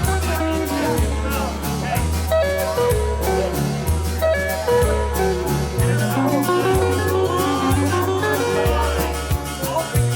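Music with a steady bass line, guitar and a singing voice.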